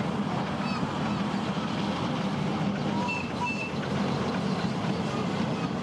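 Steady rumble of a 7¼-inch gauge miniature steam train's riding cars rolling along the track, heard from on board. A few short, high chirps sound around the middle.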